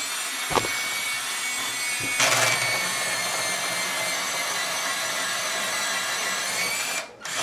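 An Afmat automatic electric pencil sharpener runs with a steady motor whine while its blade shaves the soft, waxy lead of a pencil it feeds in by itself. A click about half a second in starts it, and the cutting grows louder around two seconds in. It breaks off briefly near the end, then runs on.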